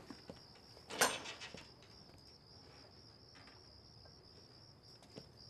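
Crickets chirping in a steady, pulsing high trill, with a brief knock about a second in and a few faint ticks.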